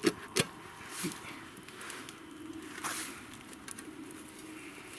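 Wood campfire crackling with scattered small pops, and a few sharp metallic knocks in the first second or so as the metal char-cloth tin is handled.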